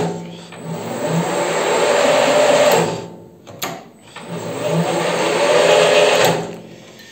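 Weisan CJM360 metal lathe's spindle and gearbox, driven by a frequency inverter, run up twice. Each time the whine builds over about two seconds, then the inverter's braking stops the chuck within about half a second, with clicks around each stop.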